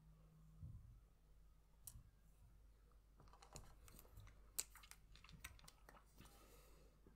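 Soft clicks and taps of a pen and clear plastic spirograph gears being handled: a felt-tip pen is picked up and set into a hole in the gear. There is a sparse click about two seconds in, then a dense run of small clicks.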